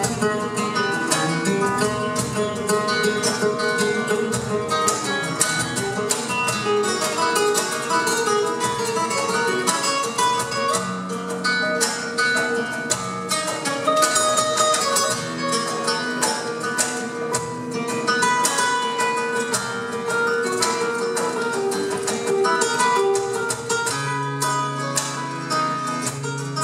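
Two nylon-string guitars, a flamenco guitar and a classical guitar, playing flamenco together live, with fast, densely picked runs over held lower notes.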